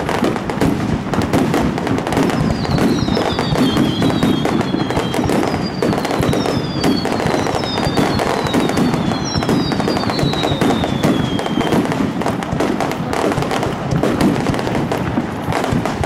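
Starmine fireworks barrage: a dense, unbroken run of bangs and crackling bursts. Several whistles falling in pitch come one after another between about two and twelve seconds in.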